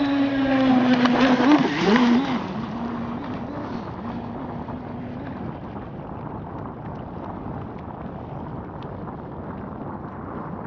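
Brushless electric motor of an RC speedboat whining, its pitch dipping and rising quickly with throttle changes. It is loudest over the first two seconds, settles into a fainter steady whine, and fades out about halfway through.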